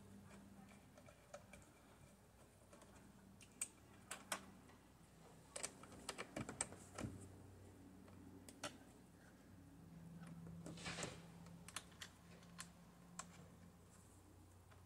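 Faint, scattered clicks and taps of a screwdriver and small metal screws working a sun visor's bracket, with a brief scratchy rasp partway through.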